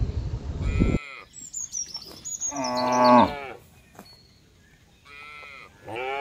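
Cattle mooing: one loud, long moo about halfway through that falls in pitch at its end, and another moo near the end. Before the first moo there is a rough noise that cuts off abruptly about a second in, followed by a run of high, falling bird chirps.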